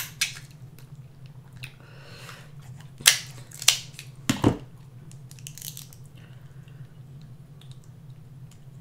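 Kitchen shears snipping and cracking king crab shell: a few sharp snips and cracks a few seconds in, one with a dull knock, then quieter picking at the crab meat.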